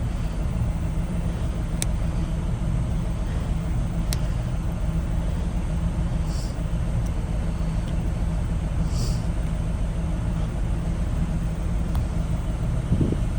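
Steady low rumble of an idling vehicle engine, with a few faint sharp clicks and two short hisses over it.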